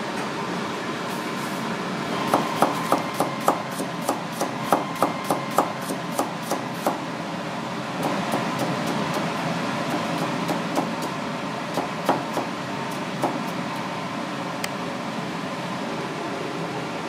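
Kitchen knife chopping cucumber on a white plastic cutting board: a quick run of sharp knocks, about three a second, then a few scattered ones, over a steady background hum.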